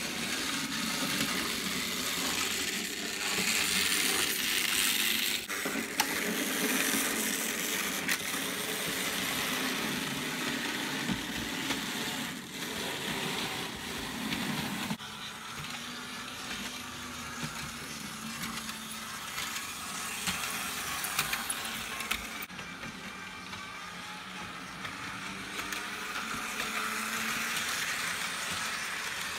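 Märklin model trains running on the layout: a steady hum of the small electric locomotive motors with the hiss of wheels rolling on the rails and occasional clicks over the track. Near the end a model NS 1100-series electric locomotive passes close by.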